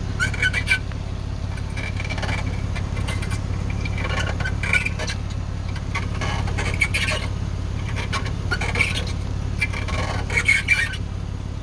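A vehicle rolling slowly in reverse over a steady low engine hum, with short squeaks and scraping sounds from underneath, coming irregularly every second or two. The owner suspects the differential; the squeak comes only some of the time, in reverse or in forward.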